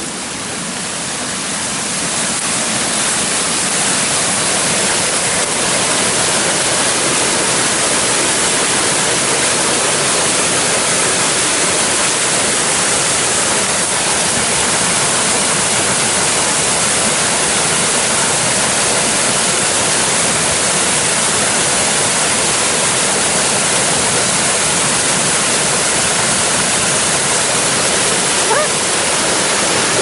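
Waterfall pouring into a rock pool: a steady, loud rush of falling water that grows louder over the first few seconds, then holds even.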